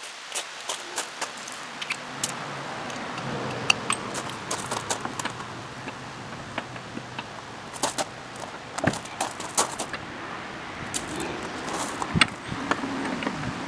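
Metal clinking and clattering: a string of sharp taps and knocks, like hand tools and small metal parts being handled and set down.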